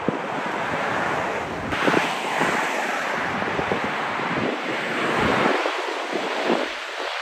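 Heavy wind buffeting the microphone, with gusty low thumps over a steady rushing roar; the sound changes abruptly about two seconds in.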